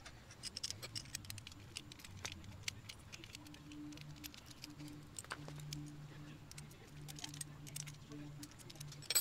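Light clicks, ticks and rattles of a hex key and a metal and plastic brake caliper being handled and fitted by hand. A low hum comes and goes in the background from about three seconds in.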